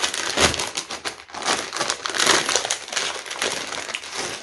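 Plastic packaging crinkling and rustling as hands handle a plastic mailer bag and the clear plastic bags inside it, loudest about half a second in and again just past two seconds.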